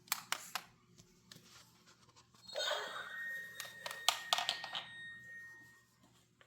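Toy knife being handled: a string of sharp plastic clicks, then about three seconds of hissing with a thin steady high tone running through it, ending near the end.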